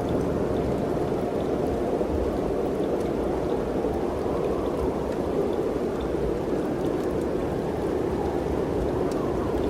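Mountain wind blowing steadily, an even rushing noise that holds at much the same level throughout.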